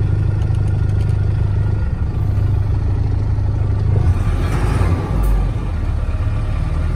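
A DAF 7.5-ton truck's diesel engine running, heard from inside the cab as a steady low hum. About four seconds in the revs rise, with the tachometer climbing from roughly 800 to about 1,300 rpm, and the engine note gets fuller.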